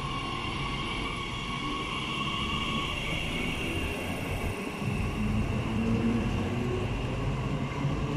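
Bombardier Talent 2 (class 442) electric multiple unit moving along the platform: rumble of the wheels on the track with a steady electric whine from the traction equipment, its pitch climbing a little after about five seconds.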